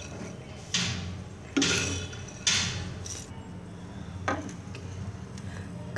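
Roasted pumpkin seeds being scraped and tipped out of a metal pan onto a ceramic plate. There are three loud dry rasps, each about a second apart, then two fainter clatters, over a steady low hum.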